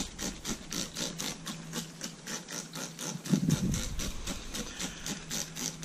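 Hand trigger spray bottle pumped quickly, a rapid, even run of hissing spritzes misting soapy water onto the car's paint to wet it for a vinyl stripe. A faint steady low hum runs underneath.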